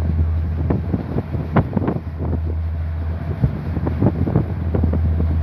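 Wind buffeting the microphone in irregular gusts on the deck of a ship under way, over the ship's steady low drone and the rush of water along the hull.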